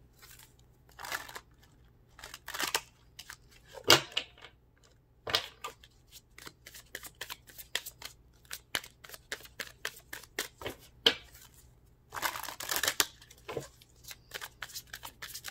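A deck of tarot cards being shuffled by hand: a stream of quick card clicks and flicks with a few longer riffling runs, the longest near the end.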